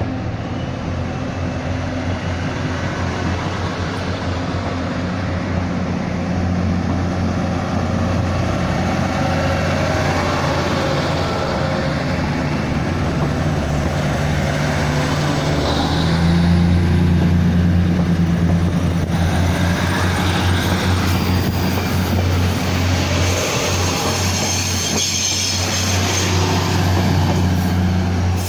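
DR3100 diesel multiple unit pulling away and running past close by, its underfloor diesel engines running steadily under power over wheel-on-rail noise. It grows louder a little past halfway as more cars go by.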